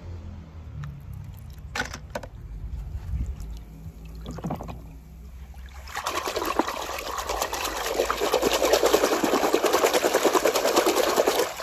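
A hand splashing and sloshing a toy car around in a plastic tub of foamy water, with continuous loud splashing from about six seconds in. Before that there are only a few faint clicks over a low rumble.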